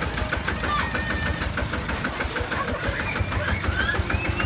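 Kubota walking tractor's single-cylinder diesel engine running with a steady, rapid chug while the tractor drives forward.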